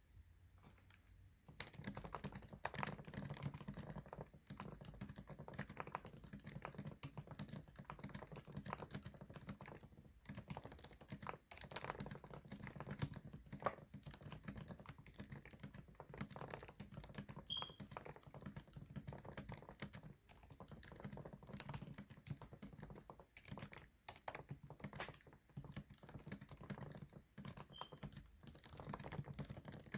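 Fast, continuous typing on a computer keyboard, a steady stream of key clicks that starts about a second and a half in.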